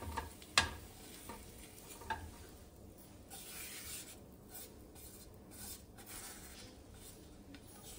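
Silicone spatula scraping fried prawns and their masala out of a nonstick frying pan onto a plate, in soft repeated strokes. There is a sharp knock about half a second in and a lighter one about two seconds in.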